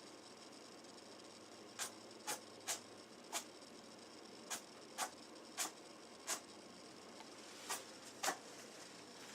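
A Netherland dwarf rabbit sneezing repeatedly: about ten short, sharp sneezes at irregular intervals, starting about two seconds in.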